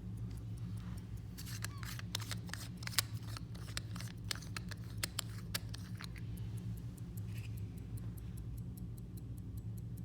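Pocket watch being handled, with small metallic clicks and scrapes of the case and screw-on bezel for the first few seconds. The lever movement then ticks fast and evenly, several ticks a second, over a low steady hum.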